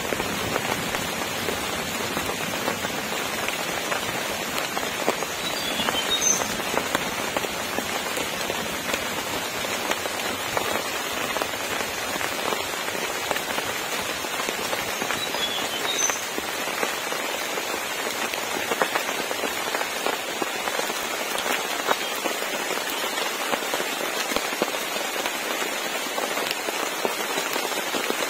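Heavy rain falling steadily: a dense, even hiss of drops with many small sharp drop hits.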